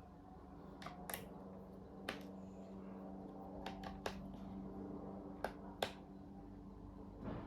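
Sharp, irregular clicks and snaps from hands and tools working on a Lenovo LOQ 15 laptop's case during disassembly, about eight in all, over a faint steady hum.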